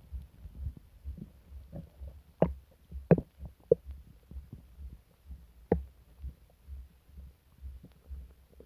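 Human stomach and bowels rumbling with an upset stomach: a low, uneven throbbing under a few short, sharp gurgles, the loudest about two and a half, three and six seconds in.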